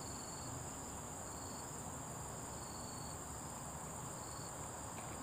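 Insects chirring in a steady high-pitched drone, with shorter, slightly lower trills recurring about every second.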